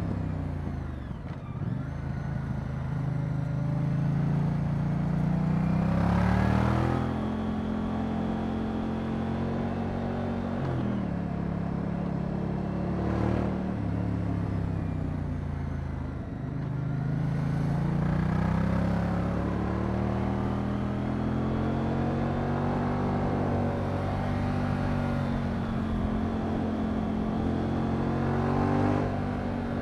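Moto Guzzi V100 Mandello's transverse V-twin engine pulling the bike along. The engine note climbs and drops several times as the rider accelerates and shifts or rolls off.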